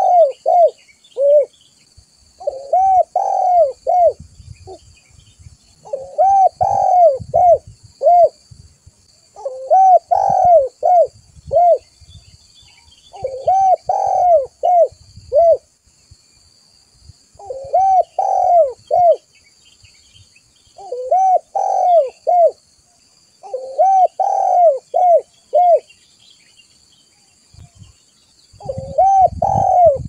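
Spotted dove (tekukur) cooing: a phrase of three to five rising-and-falling coos, repeated about every three to four seconds. This is a recorded lure call (suara pikat) meant to draw other spotted doves in.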